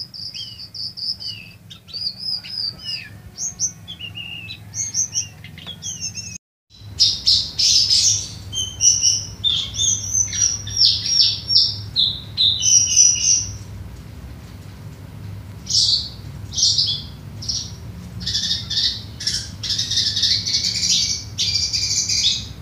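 Caged lesser shortwing (cingcoang coklat) singing: rapid, high-pitched whistled phrases and chirps in quick succession, over a steady low hum. A brief silent gap comes about six seconds in, after which the song is louder and denser.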